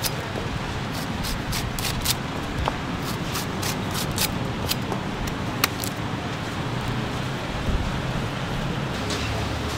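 Steady street traffic rumble, with a run of short sharp clicks through the first six seconds or so and a few more near the end.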